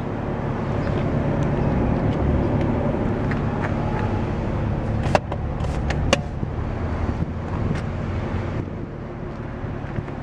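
Steady low hum of a car engine idling, with a couple of sharp clicks about five and six seconds in.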